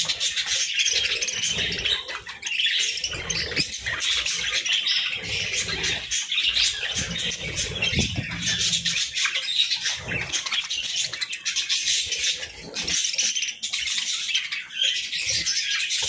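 A flock of budgerigars chattering non-stop while feeding, many overlapping chirps and warbles, with wing flutters and short clicks mixed in.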